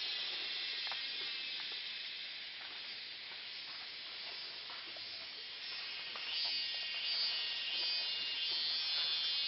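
Forest insect chorus, a steady high buzz that grows louder about six seconds in, with faint scattered clicks.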